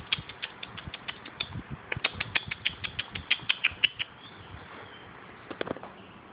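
A small wild bird loose indoors calling in a rapid series of short, sharp chips, about six or seven a second, that stops about four seconds in; two more chips come near the end.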